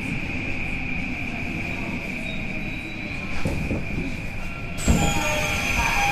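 Tokyo Metro 18000 series subway car coming to a halt with a few knocks. About five seconds in its doors slide open with a sudden thud and a falling high whine, over a steady high-pitched whine.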